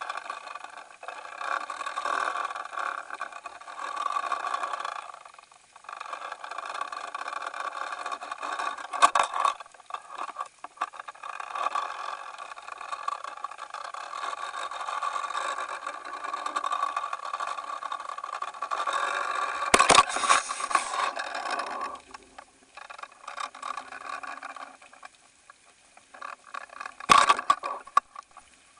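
Muffled rushing and rattling from an underwater fishing camera in its waterproof housing as it turns on the line in the current, with a few sharp knocks against the housing.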